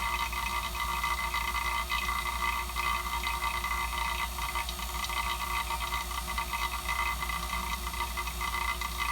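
Hilmor 9 CFM HVAC vacuum pump running steadily while it evacuates a system already pulled to 29.9 inHg, just short of the micron range.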